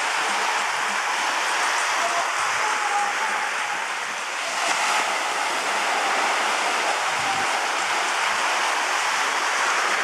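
Small sea waves breaking and washing onto the shore: a steady rushing hiss of surf.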